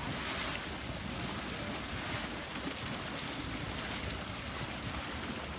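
Steady rushing and churning of Mud Volcano, a steaming, agitated hot-spring mud pool.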